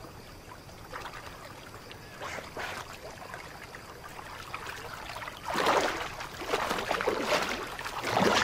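Water splashing and lapping as giant otters swim at the surface of a river. Louder splashes come about five and a half seconds in and again near the end.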